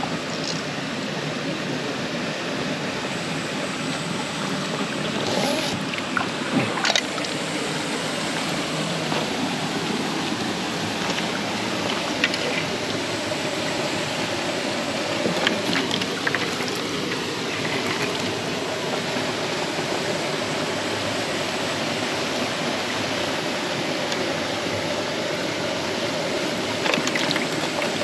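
Stream water flowing steadily, with a few short sharp sounds standing out now and then.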